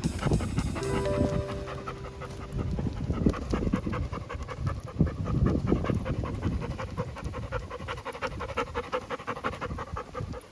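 Chocolate Labrador retriever panting in rapid, regular breaths, with background music.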